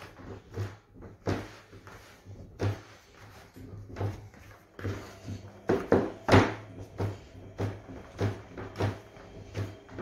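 Yeast dough being kneaded by hand in a bowl: a steady run of soft thuds, about three every two seconds, with a few louder ones around the middle.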